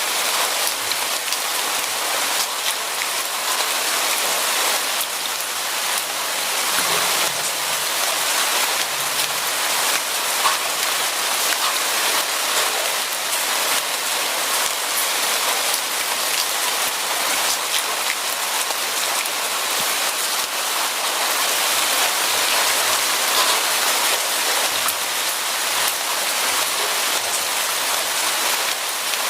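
Steady rain falling, an even hiss of rain on a surface with many individual drops ticking through it.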